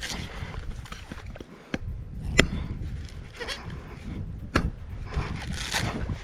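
A chopper striking a coconut's fibrous husk: a few sharp, separate chops a second or more apart, with rustling of the husk between them.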